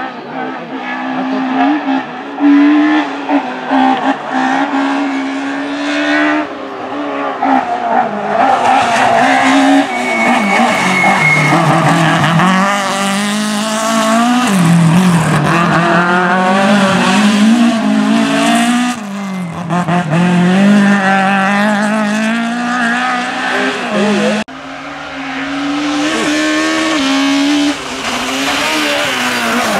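A rally car being driven flat out past the camera, its engine revving hard, with the pitch climbing and dropping again and again through gearchanges and lifts for corners. The sound changes abruptly twice where separate passes are cut together.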